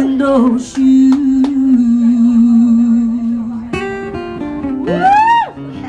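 A small live band playing: acoustic guitar with harmonica and a woman's voice. A long held note, then a wail that slides up and back down about five seconds in.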